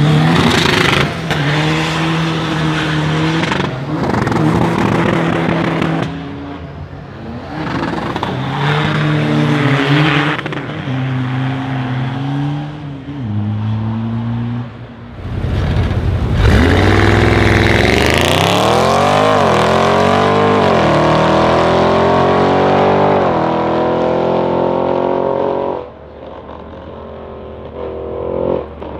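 Audi RS6 C7's twin-turbo V8 through a decatted Milltek exhaust, revved up and down several times, then a long loud acceleration with the pitch climbing and dropping back at upshifts. It falls away suddenly near the end.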